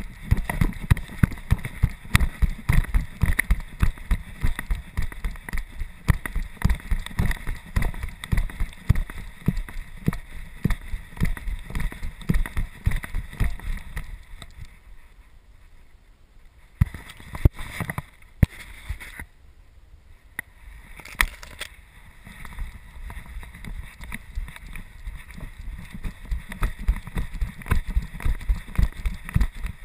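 Handling noise from a GoPro strapped to a trotting golden retriever: rapid knocks and rubbing with the dog's movement. It dies down to a few sharp clicks for several seconds in the middle, then picks up again near the end.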